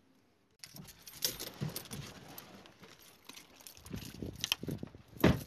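Irregular clattering and light metallic jingling with knocks, from footsteps over rocky ground and gear rattling as it is carried. It starts about half a second in, and one sharp loud knock comes near the end.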